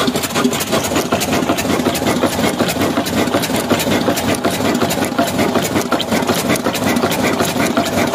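Old 18 HP diesel engine running steadily, with a rapid, even mechanical clatter.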